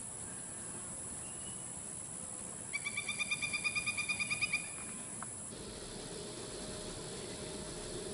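Rural outdoor ambience with a steady high-pitched insect drone. About three seconds in, a bird gives a fast trill of about two seconds. Past the middle, a low hum and hiss rise in the background.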